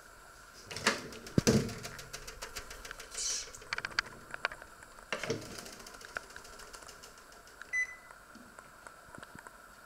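Panasonic microwave oven being opened and shut: clunks and rattles of the door and grill rack, the loudest about a second in and another knock a little after five seconds. A single short beep near the eight-second mark, then light clicking as the control dial is turned to set the time.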